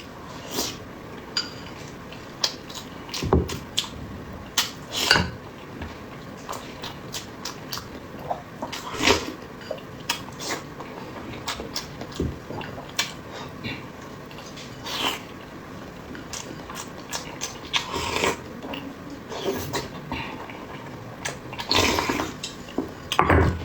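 Close-miked eating sounds: irregular wet smacks and clicks of chewing, with occasional clinks of utensils on dishes.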